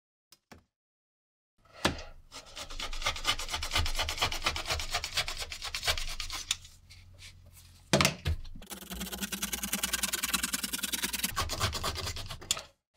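Rotary cutter rolling along a metal ruler, slicing through fabric on a cutting mat: two long rasping cuts, the second with a fast even ticking. A sharp knock starts each cut.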